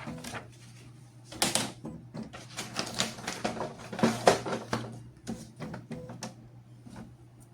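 Irregular plastic clicks, knocks and short rattles at an Epson L3150 inkjet printer, most of them in the middle few seconds, over a steady low hum.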